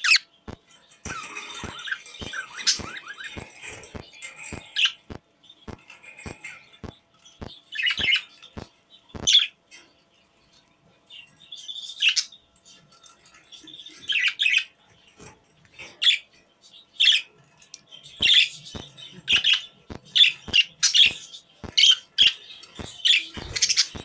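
Pet budgerigars chirping and warbling: a chattering, warbling stretch in the first few seconds, then short sharp chirps in quick runs, busiest near the end. A faint steady ticking, about two a second, runs underneath.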